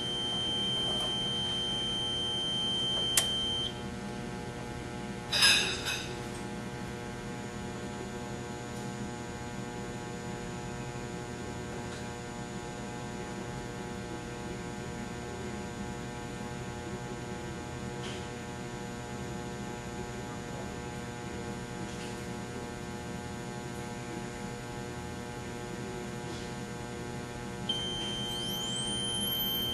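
Steady electrical hum and buzz from a power supply under surge test. A high tone cuts off with a click about three and a half seconds in, and a short loud burst follows a couple of seconds later. Near the end another click brings the high tone back with a rising whine.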